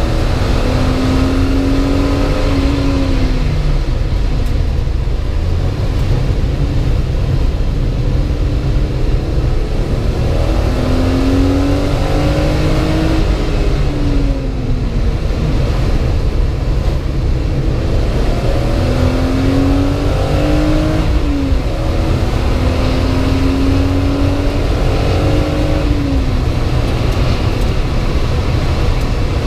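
BMW 328 engine heard from inside the cabin at race pace, its pitch climbing in repeated sweeps as it accelerates through the gears and falling away when it slows. Heavy road and tyre rumble from the wet track runs underneath.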